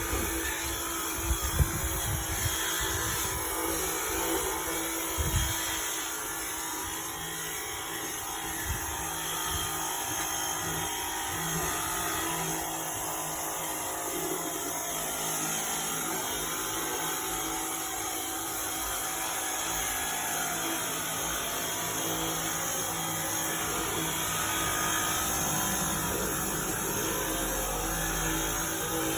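DeWalt 20-volt cordless pressure washer running steadily, its pump motor humming under a continuous spray hiss. A couple of sharp knocks come in the first few seconds.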